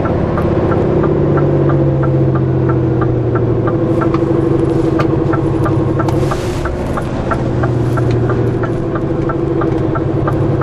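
Scania R450 lorry's inline-six diesel engine running steadily at low revs in the cab, with the indicator ticking evenly about three times a second as the truck pulls in.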